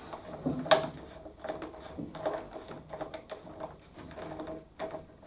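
Small irregular clicks and scrapes of an Allen key turning a screw in the leaf blower's plastic tube clamp, with hands handling the plastic housing.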